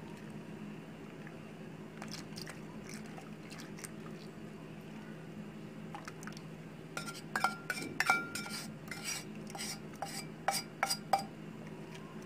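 Stainless steel jug clinking and knocking against a metal pan as pudding mix is poured into boiling milk and stirred in: a few faint taps, then a quick run of sharp, ringing clinks in the second half, over a steady low hum.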